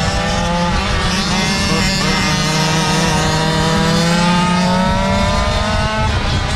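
GoPed GoQuad minikart's small two-stroke engine running at speed under the rider, its pitch climbing steadily as it pulls, dropping briefly near the end and then rising again. Wind rumbles on the microphone underneath.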